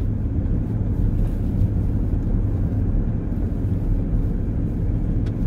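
Steady low rumble of road and engine noise inside the cab of a moving truck.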